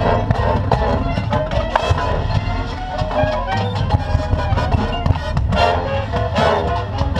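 Drum and bugle corps playing its field show: brass chords with repeated drum hits under them.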